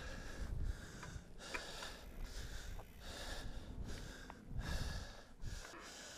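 A mountain biker breathing hard and heavily, winded from a steep climb, with breaths coming roughly once a second and a few small clicks and knocks from the bike.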